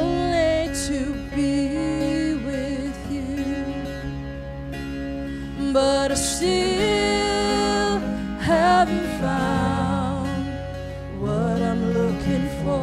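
A woman singing a slow song into a microphone over instrumental accompaniment. Her voice has a wide vibrato and holds long notes.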